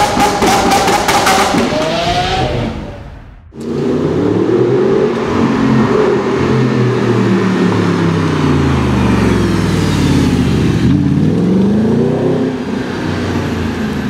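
A short intro sound effect with a held tone fades out about three seconds in. Then an Audi R8 Spyder's engine runs as the car drives off, its pitch sliding down and up several times with the revs.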